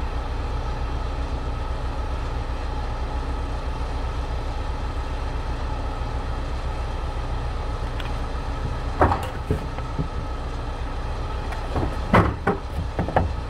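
Steady low rumble of an idling vehicle engine. It is broken by a few sharp knocks about nine seconds in and a cluster of them around twelve to thirteen seconds in.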